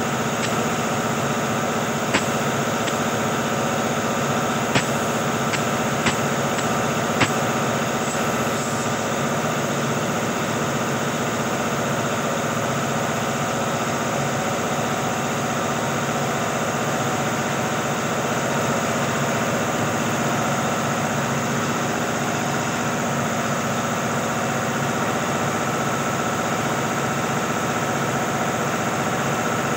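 A motor running steadily with a constant hum, with four sharp clicks in the first seven seconds or so.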